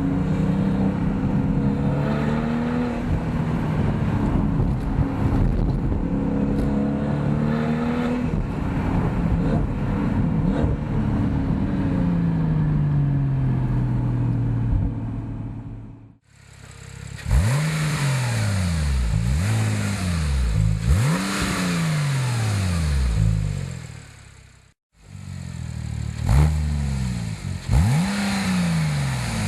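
Porsche 997.2 Turbo's 3.8-litre twin-turbo flat-six running through Fabspeed Maxflo mufflers. For the first half it runs steadily with its pitch slowly drifting up and down. After a short break it is revved in a series of quick blips, each rising sharply and falling away, about seven in all, with another short break among them.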